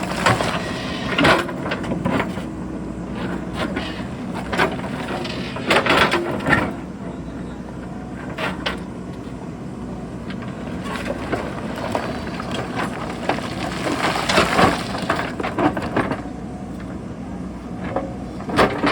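JCB backhoe loader's diesel engine running steadily under load, with rocks and stones knocking and clattering against the bucket at irregular intervals, most heavily about six seconds in and again near fourteen seconds.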